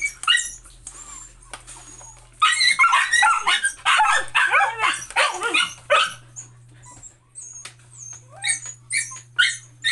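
Dogs whining and yipping in high cries that rise and fall, a long run of them a few seconds in and a string of short yips near the end: excited begging while their food is being dished out.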